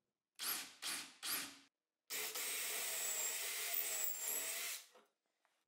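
Three short bursts of noise, then a Bosch cordless drill running steadily for about three seconds as it bores into a wooden rail.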